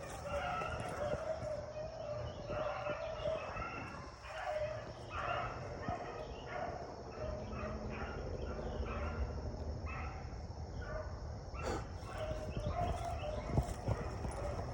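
A pack of beagles baying, many short cries overlapping and coming in irregular bursts: hounds giving voice while running a rabbit's scent.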